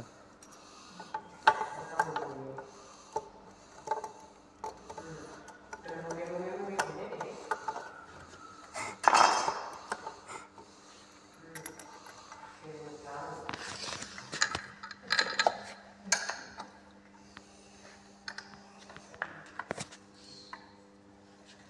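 Scattered metallic clicks and clinks of hand tools as a long steel screw is turned by hand into a pine beam and a wrench is fitted to it, over a faint steady hum.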